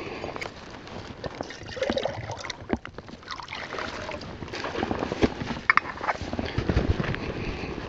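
Footsteps through dry grass and snow and the rustle and clink of handling a metal pot, with water sloshing as the pot is dipped and filled in a shallow stream. Wind buffets the microphone now and then.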